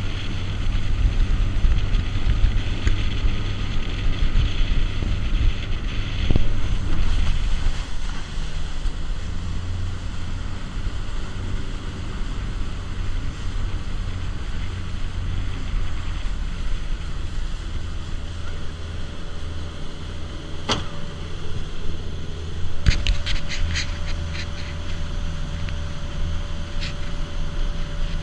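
Fishing boat under way: its engine runs with a steady low drone under the rush of the wake and wind on the microphone. A single sharp knock comes about three-quarters of the way through, followed closely by a quick run of clicks.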